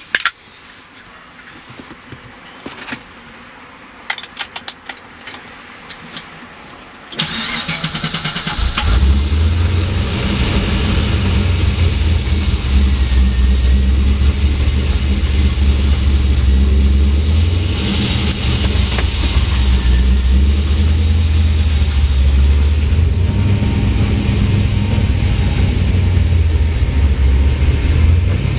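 A few sharp clicks, then about seven seconds in the Mercury Cougar's engine starts and settles into a loud, steady low running note, heard from inside the cabin, its pitch shifting a few times.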